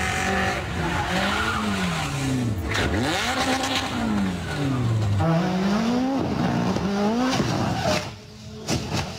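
Rally car engines revving up and down as the throttle is opened and lifted, with tyre noise. About eight seconds in the engine sound drops away, leaving a few brief sharp knocks.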